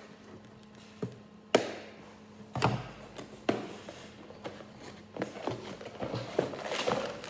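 A small cardboard box being opened by hand: a few sharp taps and knocks, then denser crinkly handling noise near the end.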